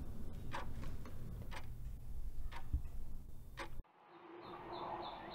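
A clock ticking about once a second over a low room hum. About four seconds in it cuts off abruptly, and a faint outdoor hiss with a few short high chirps rises in its place.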